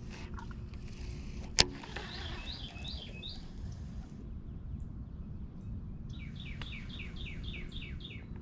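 A songbird singing two phrases of quick, repeated falling notes: a short one about two seconds in and a longer one of about ten notes near the end. A single sharp click about a second and a half in is the loudest sound, over a faint steady hum.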